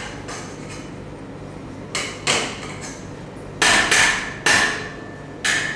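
A wrench banging on a metal pipe: about five irregular metallic clangs, each ringing briefly, the loudest two in the middle.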